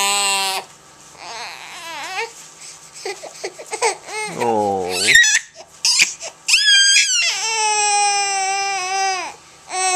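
Baby crying: short fussy whimpers, then a falling wail about halfway through, and longer held cries near the end.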